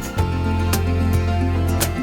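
Background music: a slow instrumental piece with a sustained bass note and plucked notes.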